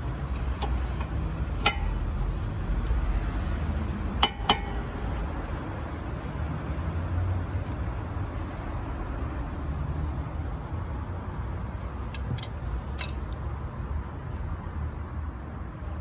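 A few sharp metallic clinks of tools and brake parts being handled, two close together about four seconds in and a cluster near the end, over a steady low rumble.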